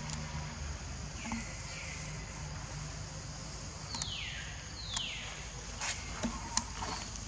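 Outdoor ambience with a steady high insect hiss. Past the middle, an animal gives two short squeaky calls a second apart, each falling in pitch, and a few light clicks follow near the end.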